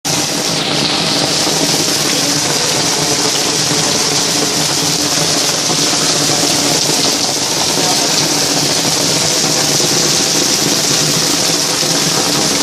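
Heavy rain falling hard, a loud, steady hiss with no letup, over a faint low hum.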